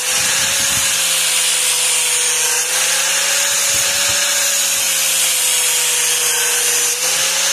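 Angle grinder with a flap disc grinding a new edge onto a steel lawnmower blade: a steady motor whine, wavering slightly in pitch, over a harsh grinding hiss.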